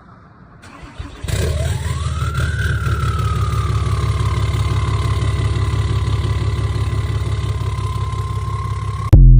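Dodge Ram pickup engine cold-started after sitting for a couple of weeks: a brief crank about a second in, then it catches and settles into a deep, even idle, with a whine that climbs and then eases back to a steady pitch. A very loud blast comes near the end, then the sound cuts off.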